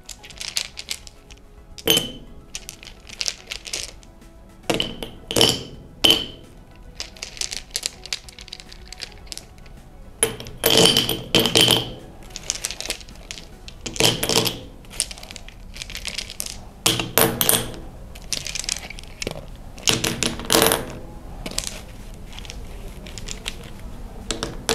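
Pebbles and stones dropped one by one into a glass jar half filled with sand, clinking against the glass and against each other at an irregular pace, sometimes several in quick succession.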